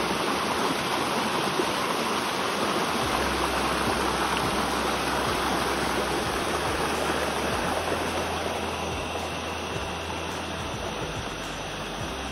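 Shallow rocky forest stream rushing and splashing over stones in a steady rush of water, easing a little near the end.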